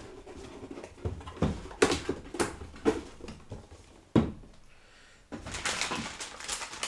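Motherboard box and its packaging being handled: a run of knocks and taps, a thump about four seconds in, then steady rustling of packaging near the end.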